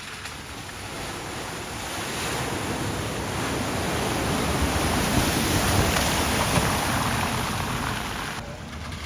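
A vehicle driving through a flooded ford, its wheels pushing and throwing up water in a rushing splash. The sound builds to a peak about five to six seconds in, then falls away sharply near the end.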